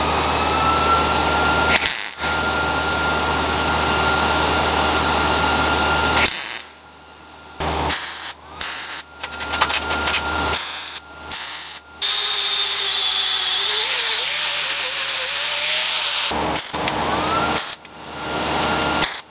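Power tools running in short cut-together clips: a motor spins up to a steady whine and runs for several seconds, then stops and starts abruptly several times, with another spin-up near the end.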